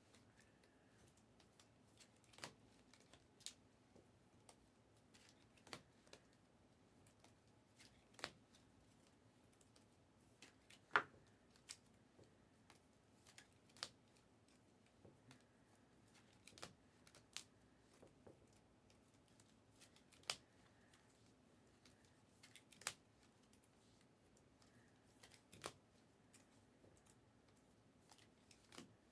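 Faint, sharp clicks and taps every second or two: trading cards and card holders being handled and set down on a table.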